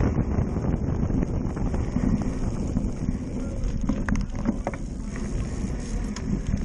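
Wind buffeting the microphone of a handlebar-mounted camera on a cyclocross bike moving at speed, with the bike rattling. A few sharp knocks come about four to five seconds in as it rolls off pavement onto rough, snowy grass and dirt.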